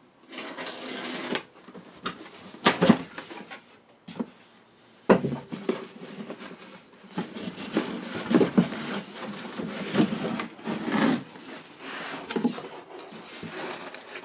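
Cardboard box being opened by hand: uneven scraping and rustling of the lid and flaps sliding and folding, with a few sharp knocks.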